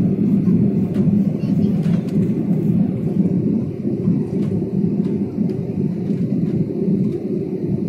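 Steady low roar of an airliner's jet engines and rushing air, heard from inside the passenger cabin as the plane climbs after takeoff.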